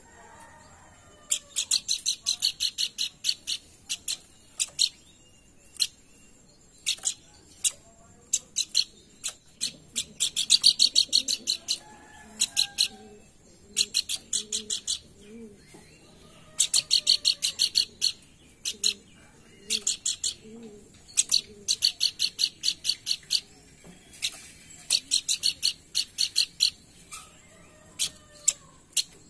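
Pelanduk bukit, a babbler, singing in repeated bursts of rapid, sharp, high chattering notes, each burst lasting a second or two with short gaps between.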